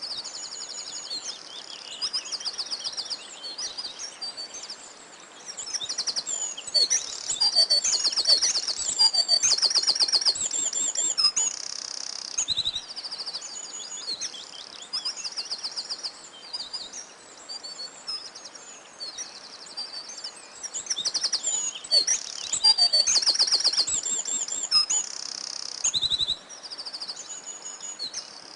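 Several songbirds singing at once, a dense chorus of high trills and chirps that overlap, growing louder for a few seconds in the middle and again near the end.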